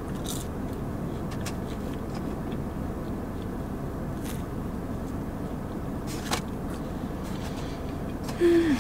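Steady low rumble inside a parked car, with faint chewing and a few soft clicks of biting into fries and a sauced chicken finger; one sharper tick a little after six seconds. Near the end a short hummed 'mm' falls in pitch.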